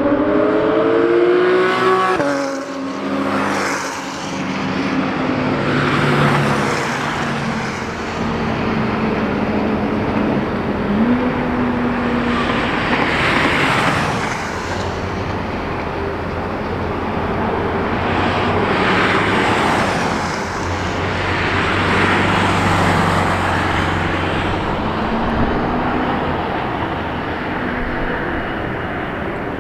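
Sports car engines accelerating and passing by: a rising engine note that breaks off about two seconds in, as at a gear change, then several swells in sound as cars go past one after another.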